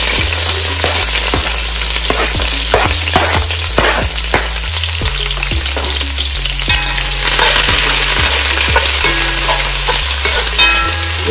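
Sliced sweet peppers, onion, carrot and thyme sizzling in hot oil in a pot, with a metal spoon scraping and clicking against the pot as they are stirred.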